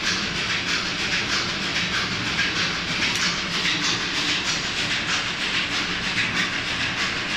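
Industrial paging feeder feeding items under a thermal inkjet printhead, its belts and rollers running with a steady, even, rhythmic clatter.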